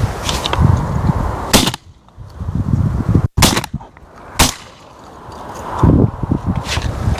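A few sharp hunting-shotgun shots fired at passing wood pigeons, each a sudden crack with a short echoing tail, spaced a second or two apart.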